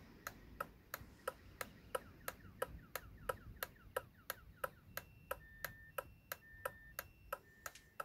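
Motorcycle alarm module set off, its relay clicking steadily about three times a second as it pulses the output that would drive the siren, here switching a lamp. From about five seconds in, short beeps alternating between two pitches join the clicking.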